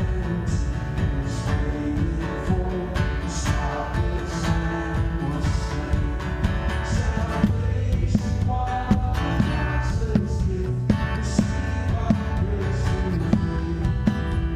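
Live church worship band playing a song, led by acoustic guitar over a strong bass, with a steady beat.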